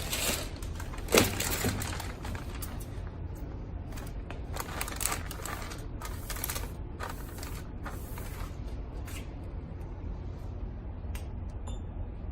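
Irregular clicks and knocks of a vacuum packaging machine being handled, with one louder knock about a second in, over a steady low hum.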